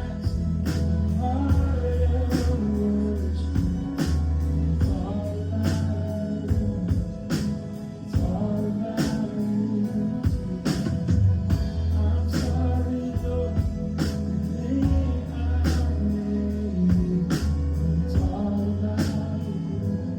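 Live worship band music: a drum kit keeping a steady beat of about two hits a second under long sustained bass notes, with singing over the top.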